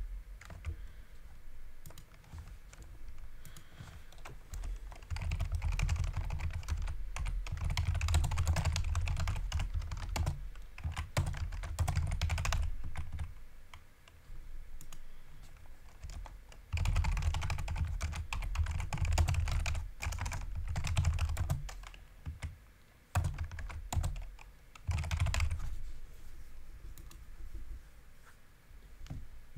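Typing on a computer keyboard: bursts of rapid keystrokes with short pauses between, the longest runs in the first half and just past the middle.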